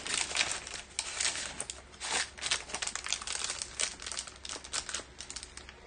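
Paper rustling and crinkling in many short bursts as hands handle the pages of a handmade paper flipbook and tuck a scrap-paper packet back into its pocket.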